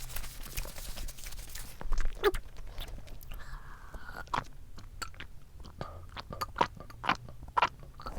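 Close-miked chewing and biting of cream doughnuts, with irregular small mouth clicks and light knocks.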